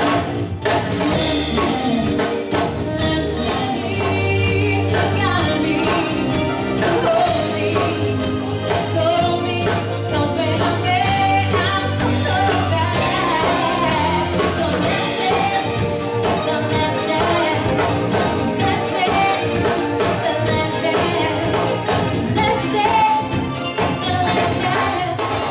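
Live dance band playing a song with a singer over a steady drum-kit beat.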